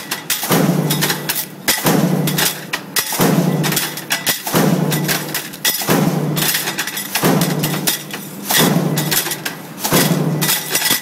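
Industrial stamping press line cycling steadily, about one stroke every 1.3 seconds. Each cycle is a short low drone followed by a clatter of metallic knocks.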